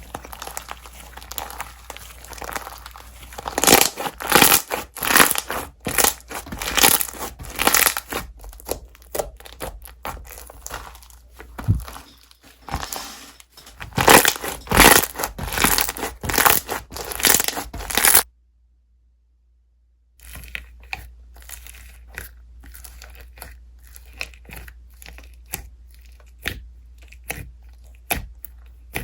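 Slime being squished and stretched by hand, giving irregular crackling and popping. The sound is loudest through the middle, cuts out completely for about two seconds, then comes back as quieter, scattered pops.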